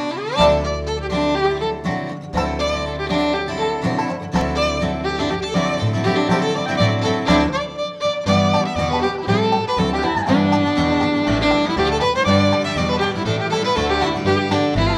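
Bluegrass band playing an instrumental, with the fiddle carrying the melody over acoustic guitar, banjo and upright bass.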